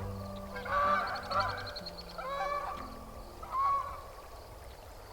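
Geese honking in three bouts of calls that grow fainter toward the end.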